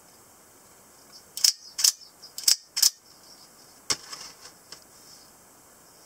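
Spring-loaded automatic knife mechanism snapping as the blade is fired and locked: four sharp metallic clicks in about a second and a half, then one more click and a few faint ticks.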